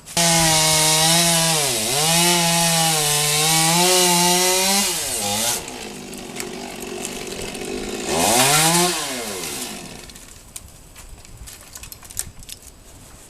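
Two-stroke chainsaw running at full throttle while cutting oak branch wood, its pitch dipping briefly about two seconds in as it loads in the cut. It drops off after about five seconds, then gives one short rev that rises and falls around eight seconds in before going quiet.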